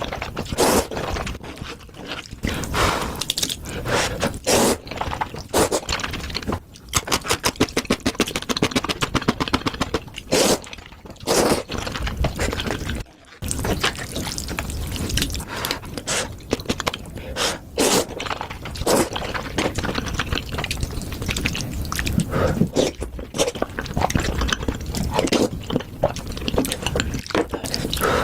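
Close-miked eating sounds of Indomie instant noodles with cheese and bread: wet chewing and slurping made of many short clicks. There is a fast run of clicks about seven seconds in.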